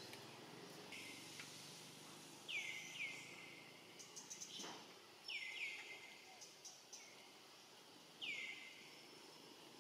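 An animal's short, high calls, each sliding down in pitch: two quick pairs and then a single call, over a faint steady hiss with a few soft ticks.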